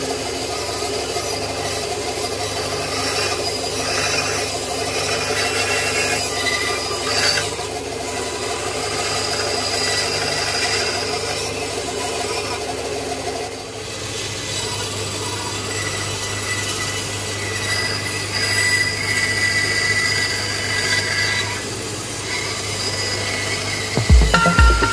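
Rexon benchtop bandsaw running with a steady hum while its blade cuts the corners off small wooden blanks. Music with a beat comes in near the end.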